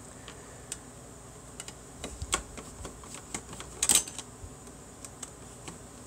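Scattered light clicks and taps of an opened ATX computer power supply being handled, its metal casing and wiring knocking, with the loudest knock about four seconds in.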